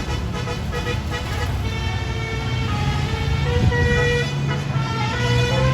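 A bus's 'basuri' telolet multi-tone musical horn playing a tune of short notes that step in pitch, over a diesel bus engine that grows louder toward the end.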